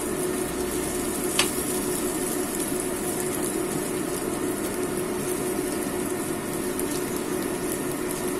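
Egg frying in a nonstick pan, sizzling steadily while a metal spatula scrapes and turns it, with one sharp tap of the spatula on the pan about a second and a half in. A steady low hum runs underneath.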